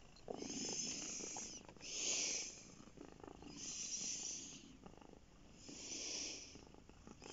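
Domestic cat purring close to the microphone, the purr swelling with each breath, about four times.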